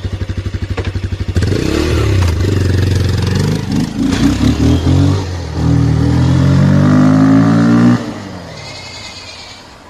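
Bajaj Pulsar 220 motorcycle's single-cylinder engine, with its air-filter box modified, idling with an even fast pulse, then revved several times from about a second and a half in, its pitch rising and falling with each blip. The throttle is shut at about eight seconds and the sound drops away.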